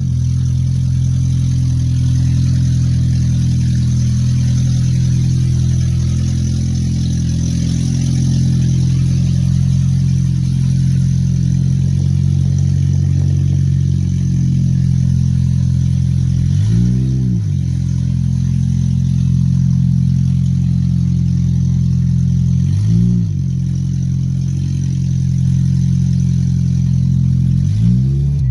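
2005 Toyota Matrix's four-cylinder engine running steadily and really loud. It is revved briefly three times, each rev rising and falling in pitch: about two-thirds of the way through, a few seconds later, and once more near the end.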